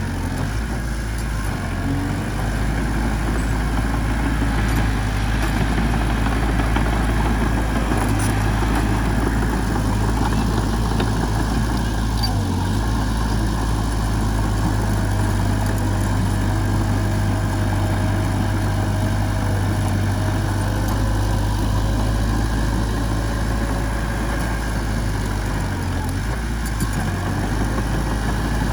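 Diesel engine of heavy machinery running steadily, a deep continuous drone.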